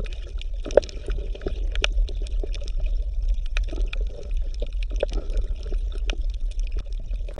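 Water bubbling and gurgling, with irregular small pops over a steady low hum.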